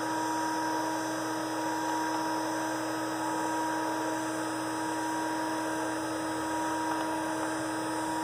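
CNC router spindle spinning at about 19,000 RPM, a steady unchanging whine.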